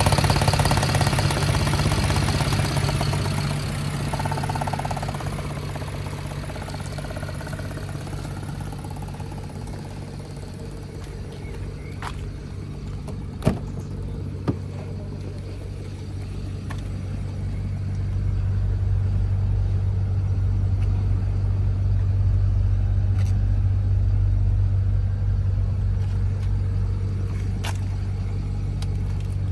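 BMW N53 3.0-litre inline-six engine running with a misfire, which the owner says makes it shake and sound like a diesel. It is a steady low hum that gets quieter midway and louder again later, with two sharp clicks in the quiet stretch.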